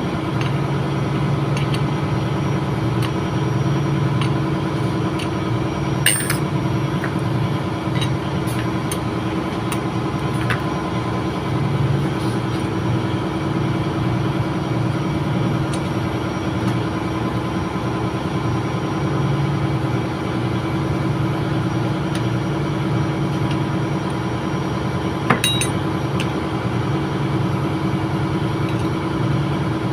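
Steady drone of running ship's machinery, holding an even hum, with two sharp metallic clinks, one about six seconds in and one near the end.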